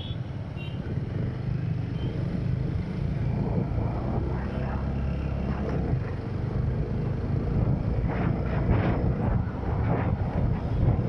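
Wind rushing over the microphone of a moving motorcycle, over a low steady engine and road rumble, getting louder toward the end.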